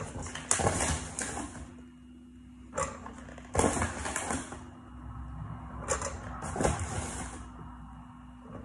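A metal spoon knocking and scraping in a plastic tub while cornflour is scooped into a mixing bowl: several sharp knocks, each followed by a short hiss as the powder goes in. A low steady hum runs underneath.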